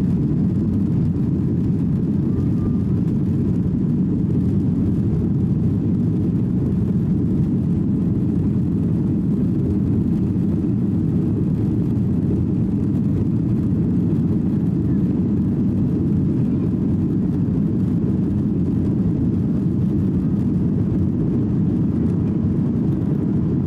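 Steady cabin roar inside a Boeing 737-800 in flight, the low rumble of airflow and its CFM56-7B turbofan engines heard from a window seat, unchanging throughout.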